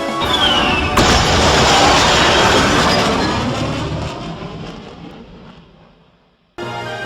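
An explosion sound effect: a short falling whistle, then a sharp boom about a second in whose rumble dies away slowly to silence over several seconds. Music starts again near the end.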